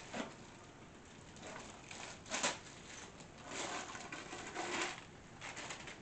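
Soft crinkling and rustling of plastic packaging while small plastic cart parts are handled, with one sharp click about two and a half seconds in.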